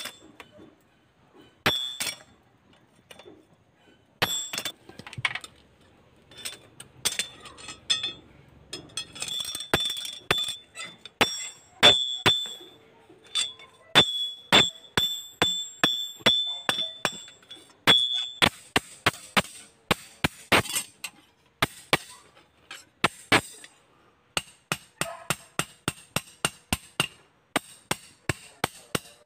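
Hand hammer striking a steel machete blade on a small anvil: sharp ringing metal clinks, spaced unevenly at first, then a quick steady run of about two blows a second near the end.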